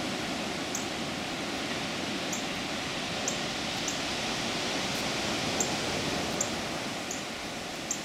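Ocean surf breaking and washing over jagged black lava rocks: a steady dense rush of water noise. A short high chirp repeats about once a second over it.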